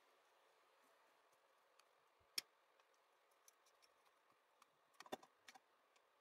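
Near silence broken by small sharp clicks and taps of a screwdriver and crimped spade terminals on the terminal screws of a switch: one louder click about two and a half seconds in, and a quick cluster of clicks about five seconds in.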